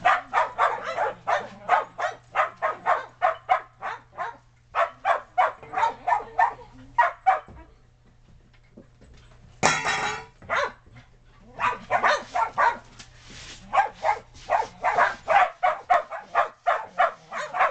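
Shetland sheepdogs barking in fast runs of sharp barks, about three a second, with a pause of a couple of seconds near the middle.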